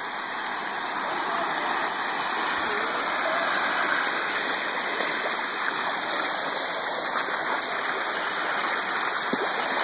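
River water spilling over the edge of a concrete low-water crossing: a steady rushing sound.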